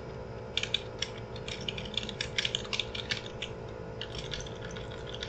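Typing on a computer keyboard: irregular, quick keystroke clicks over a steady low hum.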